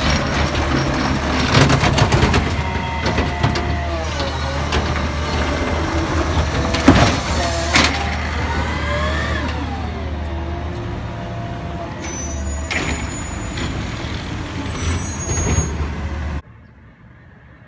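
Automated side-loader garbage truck emptying a cart: the diesel engine runs steadily under the hydraulic arm's whine, which rises and falls as the arm lifts and lowers the cart. Loud knocks about seven to eight seconds in as the cart bangs against the hopper. The sound drops off sharply near the end.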